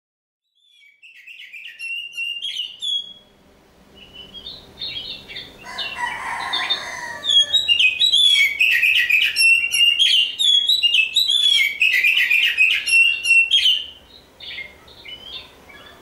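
Oriental magpie-robin (kacer) singing a varied song of quick whistled phrases. It starts about a second in, is loudest and most continuous in the middle stretch, and eases off near the end.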